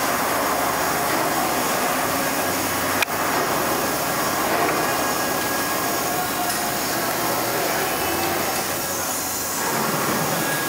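Kinwa CL78 large CNC lathe running a cut, a steady machining noise, with one sharp click about three seconds in.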